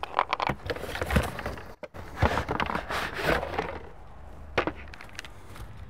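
Cardboard box and plastic pump sprayer being handled as the sprayer is pulled out of its box. A quick run of scrapes and knocks fills the first few seconds, then there is a single sharp knock near the end.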